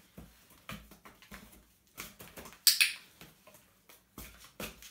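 A puppy's paws and claws scrabbling and tapping in a cardboard shoe box and on a laminate floor: irregular light scratches and taps, the loudest a brief scrape nearly three seconds in.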